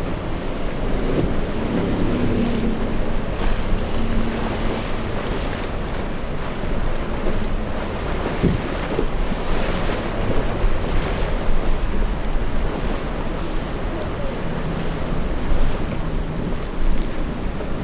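Rough surf breaking and rushing, with wind buffeting the microphone, and a boat's outboard engine running faintly underneath.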